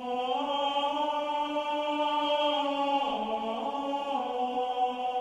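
Background music of sustained, choir-like voices holding one long note, which steps down to a lower pitch about three seconds in.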